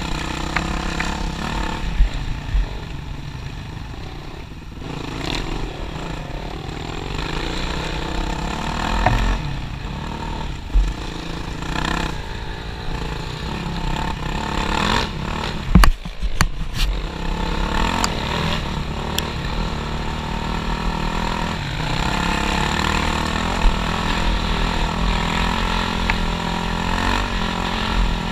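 Yamaha WR450F's single-cylinder four-stroke engine running under way on a dirt trail, its pitch rising and falling as the throttle is worked, with occasional sharp knocks and clatters over bumps, the loudest about sixteen seconds in.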